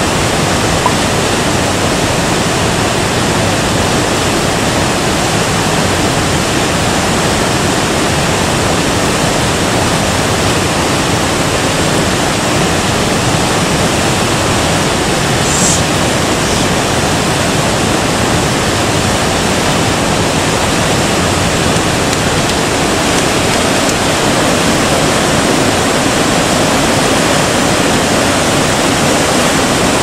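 Whitewater rushing over boulders in a mountain river: a steady, loud, even rush of water.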